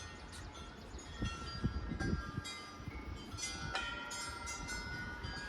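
Wind chimes ringing, several clear tones struck at different moments and overlapping as they fade, over a low irregular rumble of wind on the microphone.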